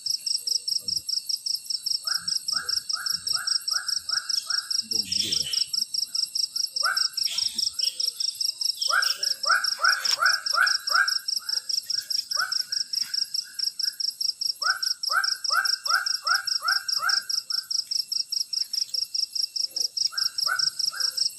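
Tropical forest night chorus: insects keep up a steady, fast-pulsing high buzz, about five pulses a second, with a higher steady trill above it. Over it an animal calls in repeated bouts of six to eight short, quick notes.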